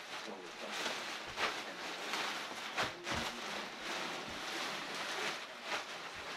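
Packaging being handled: irregular rustling and crinkling, with a few sharp clicks and knocks.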